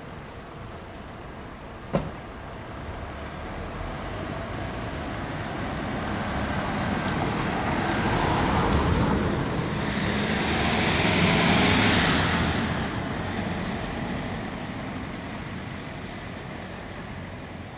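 A road vehicle driving past: its noise builds over several seconds, peaks about twelve seconds in, then fades away. A single sharp click about two seconds in.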